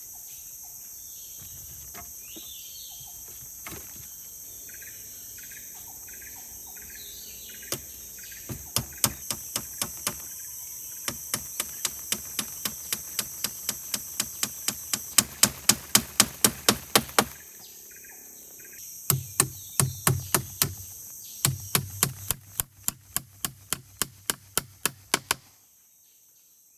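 Rapid runs of sharp knocks, about three to five a second, from tool strikes during shelter building, over a steady high drone of forest insects with a few bird chirps. The knocks begin about eight seconds in, pause briefly past the middle, and stop shortly before the end, where the background also drops away.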